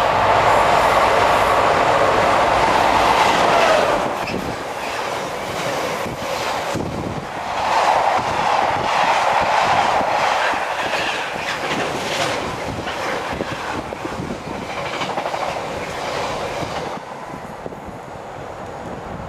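Container freight train passing on the near line, loud for the first few seconds and swelling again about eight seconds in. A long rake of intermodal wagons clicks over the rail joints and fades away near the end.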